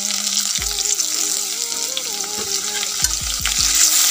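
Chopped onion and freshly added ginger-garlic paste sizzling in hot oil in a kadai, with a metal spoon stirring and scraping the pan, a few knocks of it heard in the second half.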